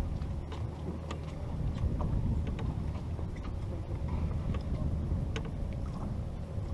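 A fishing boat's engine running steadily, with a low rumble and a faint steady hum, and scattered light clicks and knocks from gear on deck.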